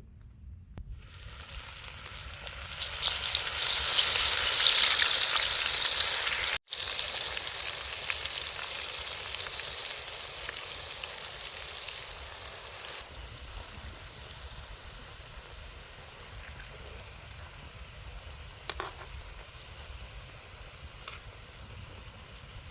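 Mushrooms coated in crispy flour frying in hot soybean oil, sizzling. The sizzle swells to its loudest a few seconds in, cuts out for an instant, then slowly dies down and settles to a quieter steady sizzle about halfway through.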